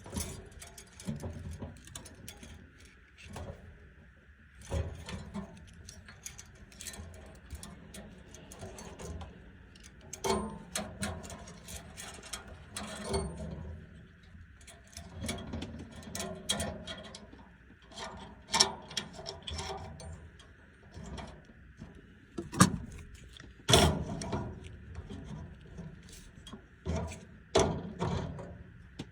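Hand tools clicking and clanking irregularly against metal fittings while the expansion valve on an evaporator coil is being worked on, with a few sharper knocks near the end over a faint steady hiss.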